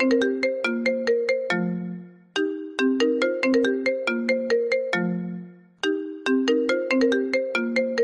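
iPhone ringtone playing on loop: a short phrase of quick, bright, marimba-like notes over lower ones, ending on a held low note that fades. The phrase repeats about every three and a half seconds, the sound of an incoming call.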